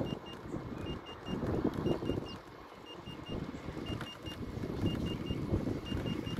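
Wind rumbling on the microphone while riding an electric unicycle, with a high electronic beep sounding in quick threes about once a second. The beeps are the unicycle's warning alarm.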